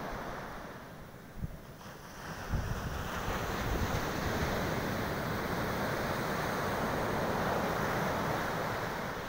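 Ocean surf washing onto a sandy beach, a steady rushing noise, with wind buffeting the phone's microphone in low rumbling gusts from about two and a half seconds in.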